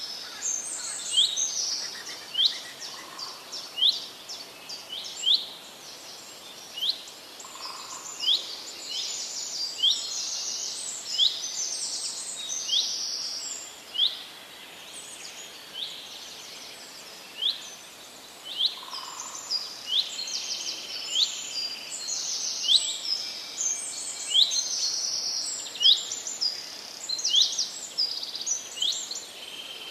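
Forest birds singing: a dense chorus of short, high chirps from several birds at once, the same quick curved note repeated again and again over the others.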